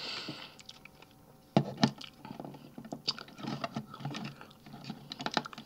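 Hard plastic toy-robot parts clicking and tapping as a hand handles the combined Transformers figure, with two sharper clicks about a second and a half in, then a run of small clicks.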